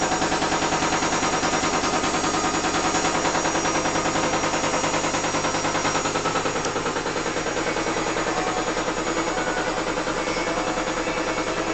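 Loud, rapid, even pulsing rattle over a steady hum, which the uploader thinks is the washing machine running.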